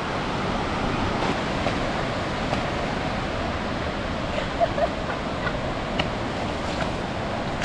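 Ocean surf breaking and washing up the beach: a steady rushing noise, with a few faint clicks.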